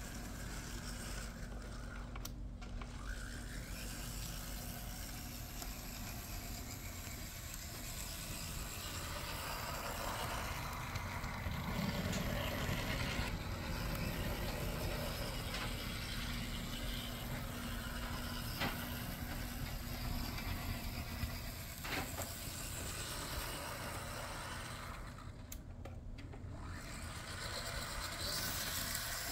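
Z scale AZL F7 model diesel locomotive running around its track: a faint steady whir from its small electric motor and wheels on the rails, louder for a few seconds in the middle.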